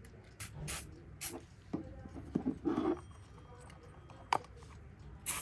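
A Kienzle twin-bell mechanical alarm clock being handled: irregular clicks, taps and short scraping rustles, with one sharp click about four seconds in.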